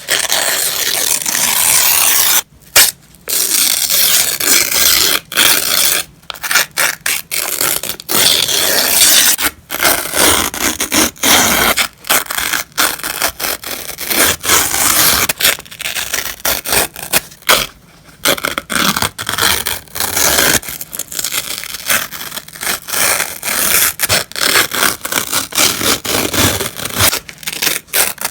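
Sheets of paper being torn by hand, crisp rips one after another: longer tears in the first half, shorter quicker ones later.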